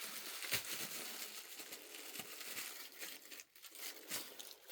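Doll packaging crinkling and rustling as it is handled and searched through, with a few light clicks.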